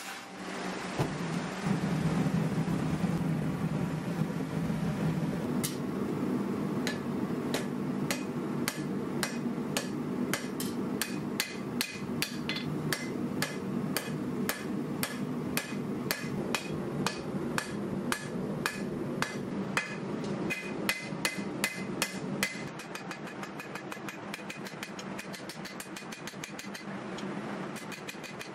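Hand hammer striking red-hot W2 carbon steel on an anvil while forging a chef knife blade: a long run of sharp, ringing blows, about three a second, starting several seconds in. A steady low roar runs underneath and drops away about three-quarters of the way through.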